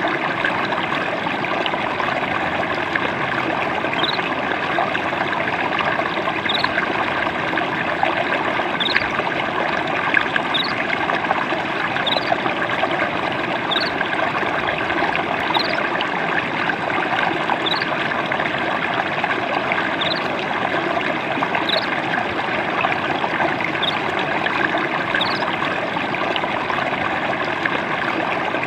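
Water trickling and burbling steadily over stones in a small stream. A faint, short, high rising chirp sounds every second or two.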